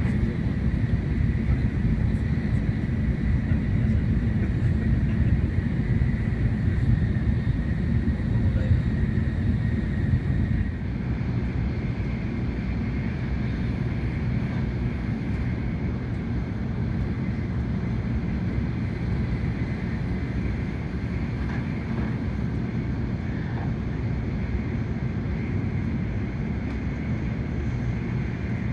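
Steady low rumble of a Hikari Shinkansen train running at speed, heard inside the passenger cabin. About ten seconds in, the noise steps slightly quieter and duller and stays that way.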